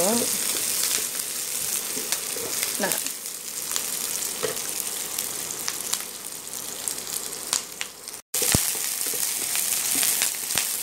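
Sliced shallots and curry leaves sizzling in hot oil in a nonstick pan, with a wooden spatula scraping and clicking against the pan as they are stirred. The sound breaks off for a split second about eight seconds in.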